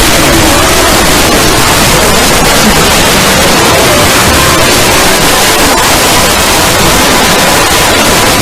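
Deliberately distorted 'punishment' sound effect: a dense, clipped wall of static-like noise at a constant, very loud level, with no pauses. A faint steady high tone joins near the end.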